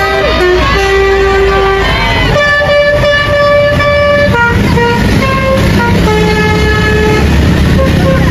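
Multi-tone telolet air horn on a large road vehicle playing a tune of held notes that step up and down in pitch, over a steady engine rumble.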